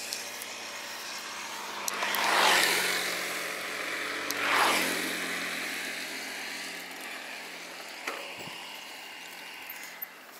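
Road traffic: two motor vehicles pass close by about two seconds apart, each swelling up and fading away, over a steady low hum.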